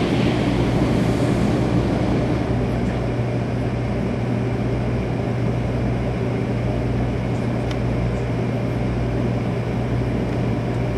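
Inside a stopped Shinkansen car, the rush of a Nozomi bullet train passing on the next track fades out in the first second or two. A steady low hum of the cabin's equipment remains.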